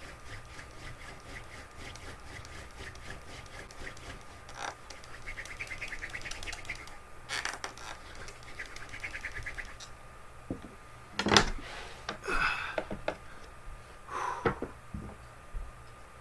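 Wooden hand-drill spindle spun against a hearth board for a friction fire, giving a fast, rhythmic rubbing and squeaking of wood on wood. Near the end come a few louder knocks and rustles.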